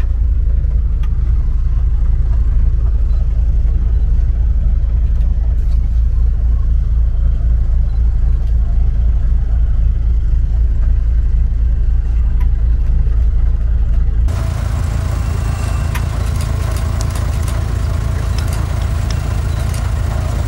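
Safari vehicle's engine idling, heard as a steady low rumble from inside the vehicle. About two-thirds of the way through the sound changes suddenly to a brighter, noisier rumble with scattered sharp clicks.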